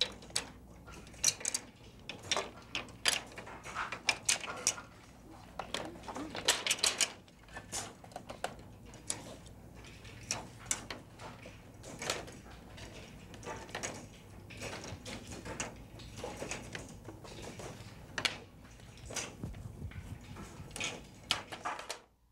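Red plastic weights clicking and clattering as they are hung on and lifted off the pegs of several plastic math balances, in an irregular run of sharp clicks over a low steady hum.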